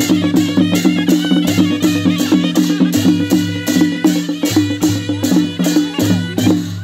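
Nepali panche baja wedding band playing: jhyali hand cymbals clash about twice a second over drums and a held wind melody. The music gets quieter near the end.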